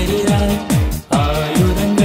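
Electronic music: sustained synth chords over a repeated falling bass sweep about twice a second, with a brief drop-out about a second in.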